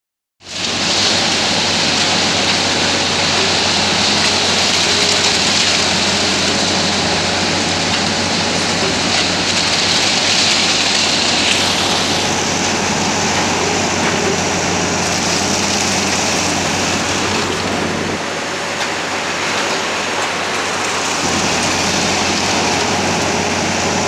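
Loader-backhoe engine running steadily, driving a hydraulic concrete pump attachment that is pushing concrete out of its delivery pipe. It makes a loud, even rushing noise over a constant low hum, dipping slightly about three-quarters of the way through.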